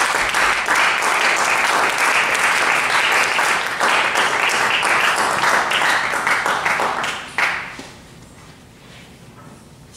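Audience applauding: dense, steady clapping that thins and stops about three quarters of the way through, with one last sharp clap, leaving the quiet hum of the hall.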